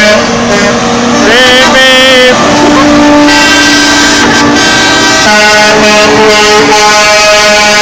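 Several truck horns sounding at once, long steady overlapping tones at different pitches that start and stop at different times, a couple of them sliding up in pitch about a second and a half in.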